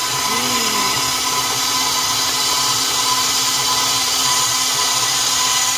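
Electric mixer running steadily with a motor whine, beating eggs into creamed butter and sugar for cookie dough.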